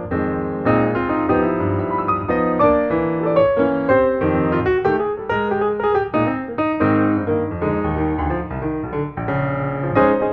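Background piano music, a run of notes with no other sound.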